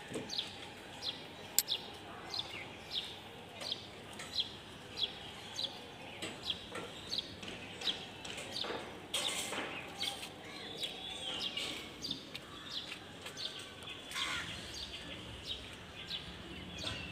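A bird chirping over and over: short falling high notes, about two a second, over faint outdoor background noise.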